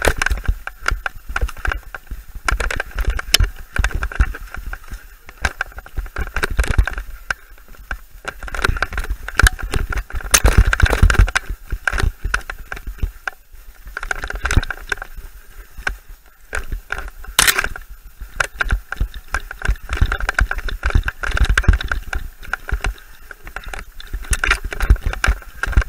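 Mountain bike descending rough forest singletrack at speed: tyres on dirt and stones, and the bike rattling with a dense run of irregular knocks over roots and rocks, under a low rumble of wind on the microphone.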